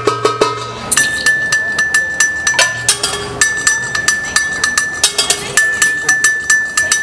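Live hand-percussion jam of djembes and cajon with a ringing metal bell-like part, played as a fast, even beat. The ringing tone comes in about a second in and drops out twice for a moment.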